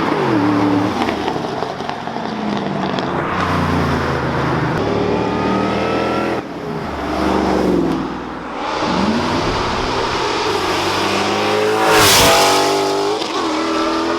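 Ford Mustang engines revving and accelerating hard in a string of pull-outs, the engine pitch climbing and dropping again and again, with a loud sharp rush about twelve seconds in.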